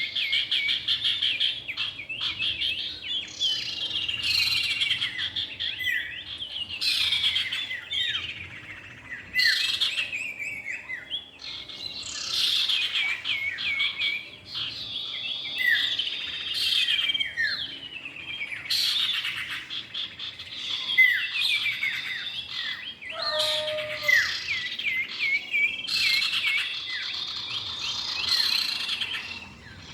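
Common iora (cipoh) calls: a dense, continuous run of high chirps, trills and short downward-sweeping whistles, several birds calling over one another.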